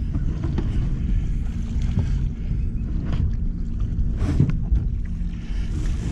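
Wind rumbling on the microphone over a steady low hum, with a few sharp knocks. About four seconds in, a splash and clatter as the landing net holding a blue catfish is lifted out of the water over the side of the boat.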